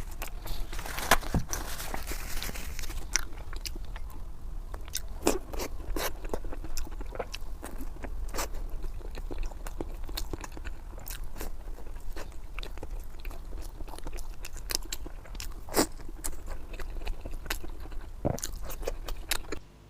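Someone eating crunchy food close to the microphone: irregular crisp bites and crunches with chewing between them, busiest in the first few seconds.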